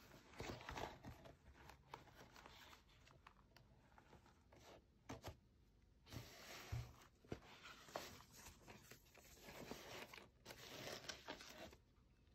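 Faint, irregular rustling and scraping of hands handling a zippered fabric goggle case and its lining, then sliding a paper information card inside it, busier and louder in the second half.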